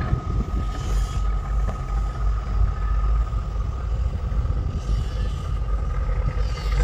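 A three-engine diesel barge running under way on a test run, a steady low rumble with a thin, steady high whine on top.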